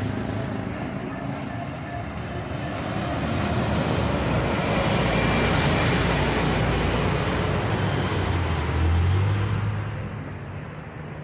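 Articulated city bus passing close by, its engine and tyre noise swelling over a few seconds, with a low engine drone near the end before fading, over steady street traffic.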